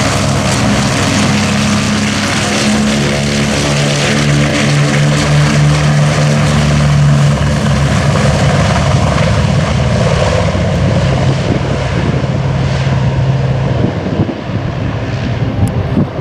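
Boeing B-29 Superfortress bomber's four Wright R-3350 eighteen-cylinder radial engines running as it rolls past on the runway: a loud, steady, deep propeller drone. About fourteen seconds in the engine tone drops away and a gusty, uneven rumble takes over.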